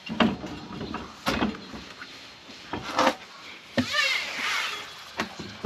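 Spare tire and wheel being handled and offered up to the van's wheel hub to test the fit: a series of separate clunks and knocks, with a rasping scrape about four seconds in.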